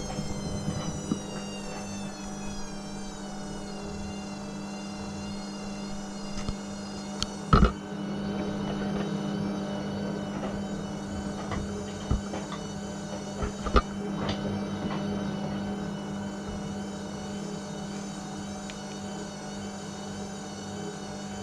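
Hotpoint WMA40 washing machine in its spin cycle: motor hum and whine that falls in pitch over the first few seconds, then runs steady. A few sharp knocks, the loudest twice, come from the machine jumping on its spin.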